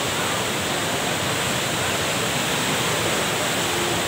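Steady rushing of a river in flash flood, fast turbulent floodwater overflowing its banks, as an even, unbroken wash of noise.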